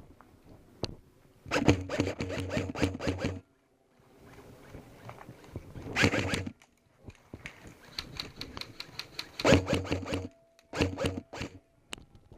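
Airsoft gun firing four bursts of rapid shots, each a fast run of clicks over a motor hum. The first burst lasts about two seconds, and the other three are shorter.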